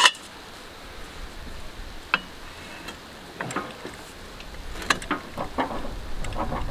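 Scattered light metallic clicks and knocks of a wrench working on a truck engine that is being turned over by hand, a stiff engine that binds and seizes partway round. A low rumble builds near the end.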